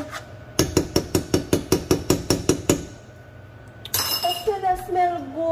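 A fork stirring penne in a metal pot, clinking rapidly against the pot's side, about eight clinks a second for a couple of seconds, starting about half a second in. Near the end, a woman hums briefly.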